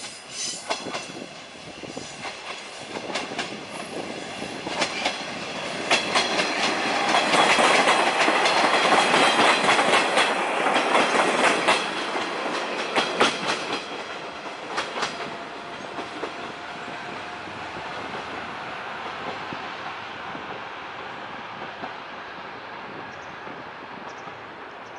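Sanriku Railway 36-series diesel railcar passing close, its wheels clicking over rail joints and points. The clicks grow to a loud, dense clatter about seven to twelve seconds in, then fade to a quieter steady rumble.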